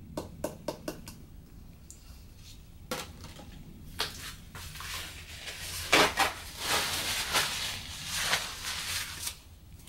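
Kitchenware handled on an aluminum tray as dry cake mix is tipped into a small aluminum baking dish: a few light taps at first, a sharper knock about six seconds in, then scraping and rustling.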